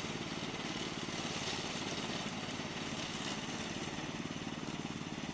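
Remote-control lawn mower running steadily, an even machine drone that holds the same level throughout.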